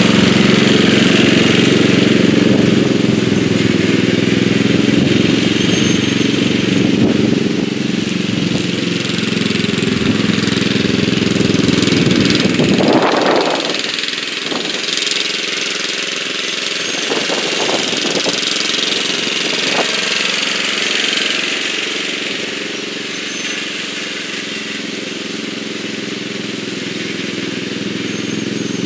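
1983 Bolens G11 LT lawn tractor's 11 hp Briggs & Stratton engine, built up with raised compression and a different cam, running steadily under load while mowing. It is loudest in the first half and grows quieter from about halfway as the tractor drives away.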